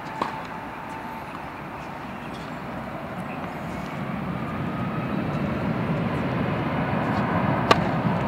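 One sharp pop of a tennis racket striking the ball on a serve near the end, with a fainter knock just after the start. Underneath, the low rumble of a passing aircraft swells steadily from about three seconds in.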